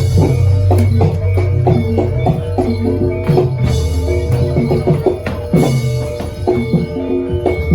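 Live Javanese gamelan music accompanying a jaranan dance: struck metal keyed instruments playing a repeating pattern over drum strokes, with a sustained low gong hum underneath.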